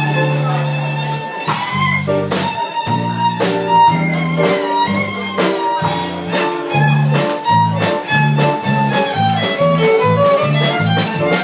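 A live band playing: a violin carries the melody over a stepping electric bass line and regular drum-kit strikes.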